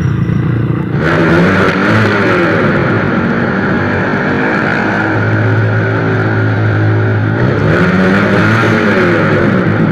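Rusi Sigma 250 motorcycle with an Akrapovic exhaust pipe riding through a road tunnel. About a second in, the engine and road noise turn fuller and echoing. The engine rises in revs and holds steady, then rises and falls again near the end.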